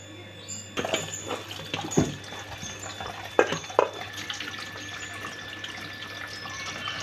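Kitchen tap water running onto cabbage leaves in a perforated aluminium colander as they are rinsed by hand. The water starts about a second in, and a few sharp knocks come through it in the middle.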